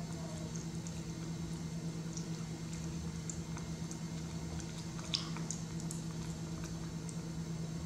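Small wet clicks and smacks of a baby macaque chewing food from a plastic spoon, with a sharper click about five seconds in, over a steady low hum.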